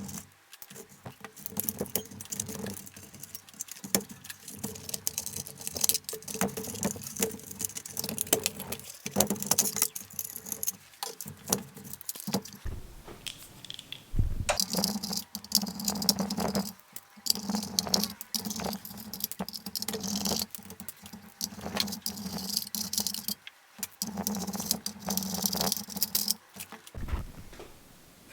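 Small hard parts and tools being handled on a work surface: irregular clicks, taps and short rattles throughout, with a low hum that comes and goes.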